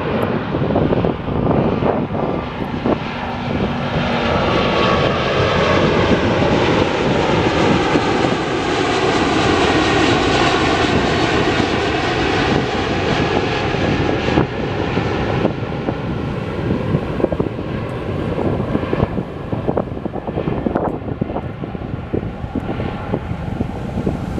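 Emirates Airbus A380 jet airliner climbing out after takeoff: the engine noise of its four jet engines swells as it passes overhead, loudest around the middle, then slowly eases off, with a slow sweeping, phasing quality in its tone.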